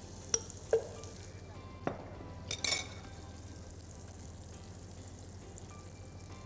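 Butter and oil heating in a pan on the stove with a faint steady sizzle, the start of a roux for béchamel. A few light knocks and clinks of a utensil against the pan come in the first three seconds.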